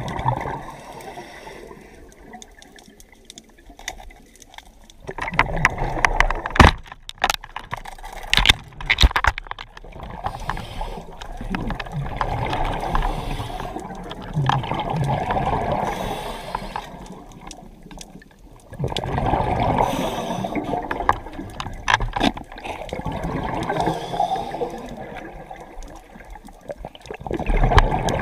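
Scuba diver breathing underwater through a regulator: exhaled bubbles gurgle in bursts of a couple of seconds with quieter pauses between, and a few sharp clicks.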